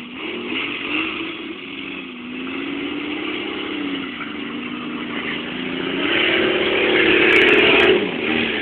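Straight-piped Cummins diesel engine in a Jeep, revving up and down as it is driven. It climbs to its loudest and highest about six seconds in, then drops off sharply near eight seconds.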